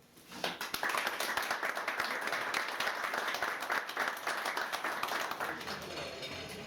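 A small audience applauding, starting about half a second in and dying away near the end.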